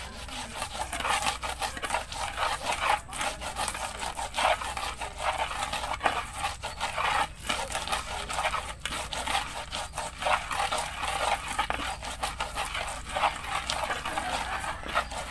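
Pestle grinding and crushing peanuts against a wide clay mortar (cobek), an uneven gritty scraping that keeps going with many small bursts, as the peanut sauce for rujak is being ground.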